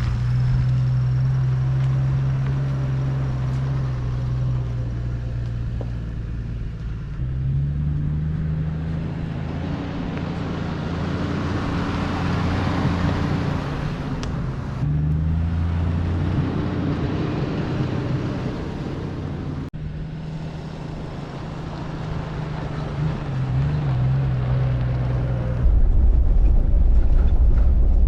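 Toyota LandCruiser Troopcarrier's engine running on the move, its pitch shifting up and down several times with speed and gear. A louder low rumble sets in near the end.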